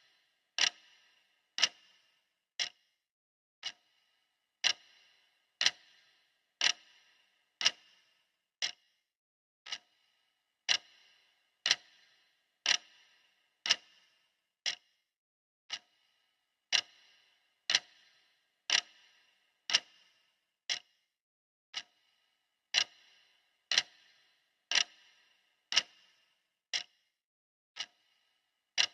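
Clock ticking at about one tick a second, each tick a sharp click with a short ring; a couple of softer ticks recur every six seconds or so in a looping pattern.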